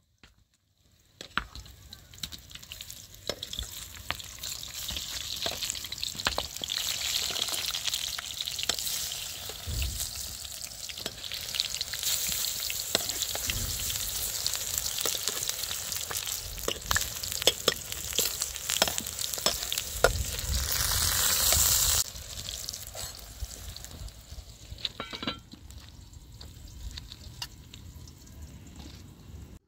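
Food frying in a pan: a steady sizzling hiss, with frequent small scrapes and clicks of stirring. The sizzle grows louder through the middle, then drops off suddenly about two-thirds of the way through.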